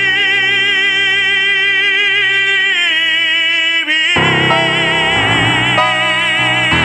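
Male operatic voice holding a long final note with wide vibrato over instrumental accompaniment. About three seconds in the note slides down, then about four seconds in it jumps up to a new held note as the accompaniment grows fuller.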